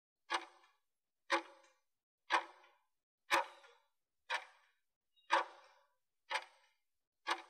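Countdown timer tick sound effect, one short clock-like tick each second, eight in all, marking the final seconds of a work interval before the break.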